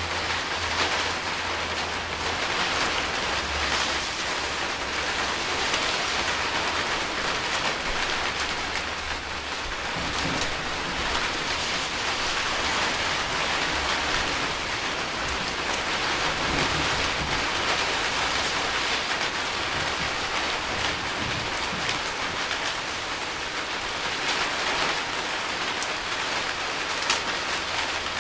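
Steady rain falling during a thunderstorm, with a low thunder rumble dying away in the first couple of seconds. A single sharp click near the end.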